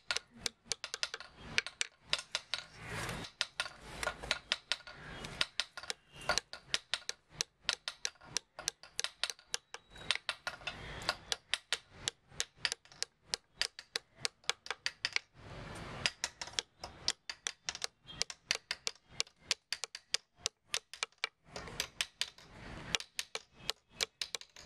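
Small hammer tapping a punch to set metal wire inlay into a wooden panel: a steady run of light, sharp taps, about four a second.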